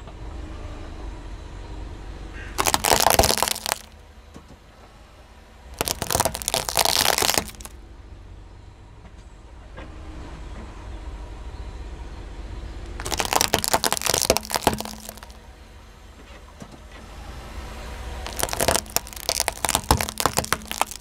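Car tyre rolling over small plastic toy cups and plastic spring coils filled with water beads, cracking and crunching them in four bursts of a second or two each, over a low steady rumble.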